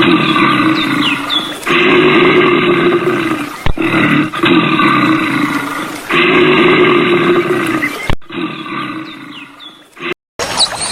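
A large animal giving loud, drawn-out roaring calls, repeated in several long stretches and broken off abruptly by edit cuts, with a few faint bird chirps above.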